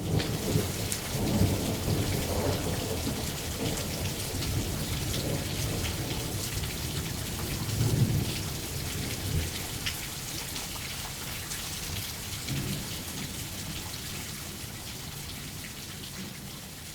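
Steady rain falling with rolling thunder. The thunder rumbles loudest about a second and a half in and again about eight seconds in, with a fainter roll later; the rain hiss continues as the rumbling fades.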